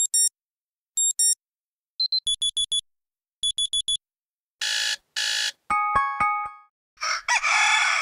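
Android 4.2 stock alarm tones played one after another: groups of short, high electronic beeps, then two buzzer blasts, then a few chiming tones, and a synthesized rooster crow from about 7 seconds in.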